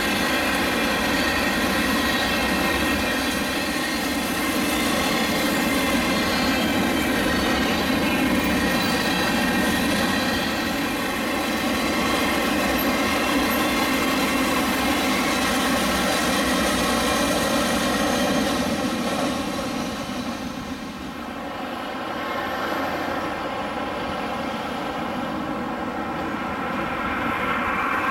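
Freight cars of a Florida East Coast Railway train rolling past on the rails: steady wheel-and-rail noise with a ringing tone over it. About three quarters of the way through this gives way to a quieter drone of a distant approaching CSX diesel freight.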